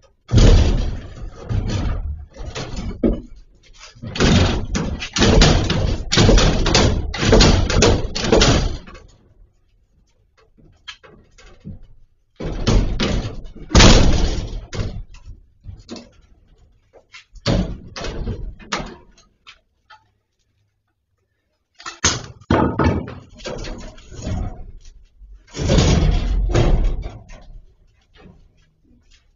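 Repeated heavy blows and crashes as a barred iron window grille is battered out of a masonry wall with a long-handled tool. The impacts come in bursts of several seconds, with short pauses between them.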